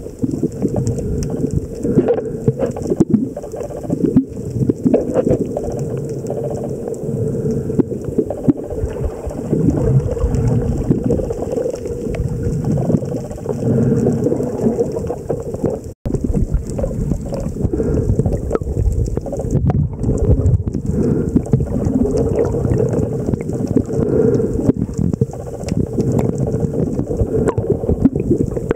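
Muffled underwater rushing and gurgling of water against a camera held below the surface, dense and low, with many small clicks and knocks throughout. It drops out for an instant about halfway through.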